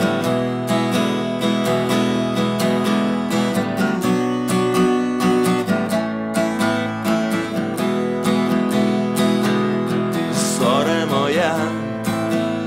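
Acoustic guitar strummed in a steady chord pattern, the accompaniment of a simple three-chord song. A voice comes in briefly near the end.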